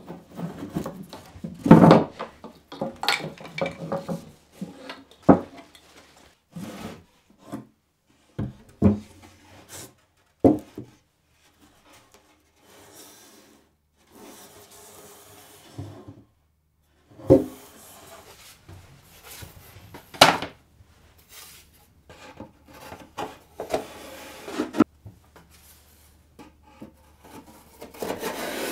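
Plywood box and thin fibreboard panels handled on a wooden workbench: scattered knocks of wood against wood, between stretches of boards rubbing and sliding against each other. A few of the knocks are much sharper and louder than the rest.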